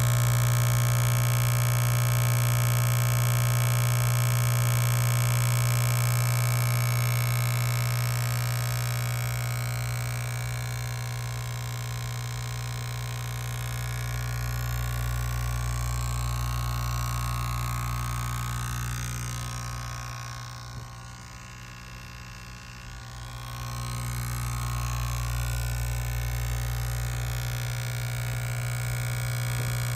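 Compressor running with a steady hum and a whine of many steady tones above it. It grows quieter about twenty seconds in and comes back up a few seconds later.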